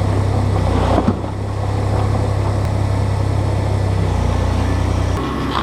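A vehicle engine running steadily, with a single sharp knock about a second in and the engine note falling off slightly near the end.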